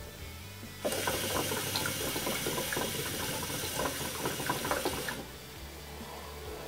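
Hookah water bowl bubbling steadily as smoke is drawn through the hose. The bubbling starts about a second in and stops about four seconds later.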